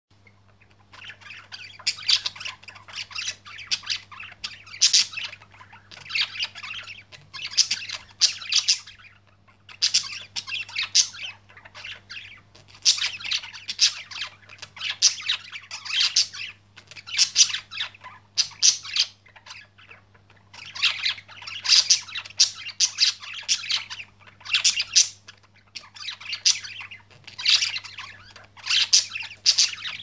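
Budgerigars chattering: clusters of rapid chirps and scratchy warbles, each a second or two long with short pauses between, over a faint steady low hum.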